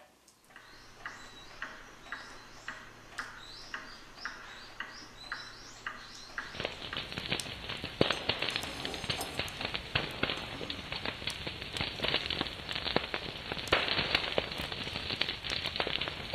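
Regular ticking, about two ticks a second, for the first six seconds; then it gives way suddenly to a wood fire crackling and popping in an irori (sunken hearth), a dense run of snaps that lasts to the end.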